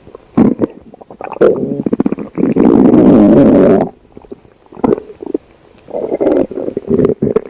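Stomach growling: a run of short gurgles, then a long, loud rumble about three seconds in, and another rumbling stretch near the end.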